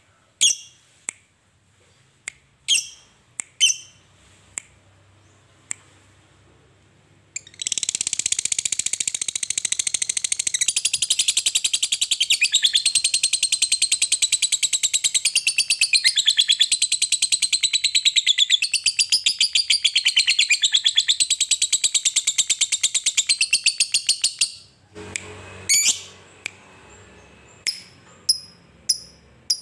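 Lovebird singing its long 'ngekek', the rapid chattering trill prized in fighter lovebirds. A few scattered short chirps come first. About seven seconds in, an unbroken high, rapid chatter starts and runs for some seventeen seconds, then breaks back into short chirps near the end.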